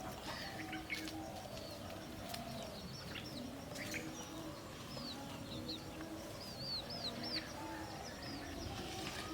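Birds chirping: short, high chirps scattered throughout, with a quick run of them about six to seven seconds in.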